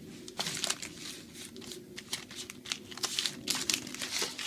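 Card packaging being handled, crinkling and rustling in a quick run of crackles that starts about half a second in.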